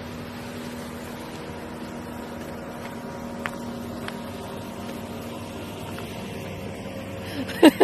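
A steady mechanical hum with a low, even drone, and two faint clicks around the middle.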